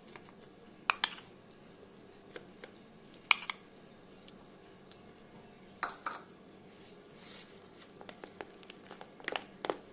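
A spoon clicking against a plastic tray and bowl as mango pieces are spooned onto ice cream: a few sharp clicks in pairs, spaced a couple of seconds apart, then quicker, lighter taps and scrapes near the end as the mango is stirred into the ice cream.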